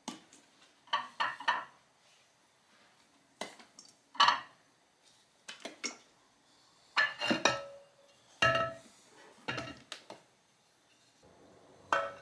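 Metal transmission parts clinking and knocking as a piston is handled and set into its cast-iron housing: a dozen or so short, scattered clinks, some of them ringing briefly.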